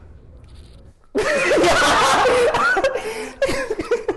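Several young men laughing loudly, breaking out about a second in and dying down near the end.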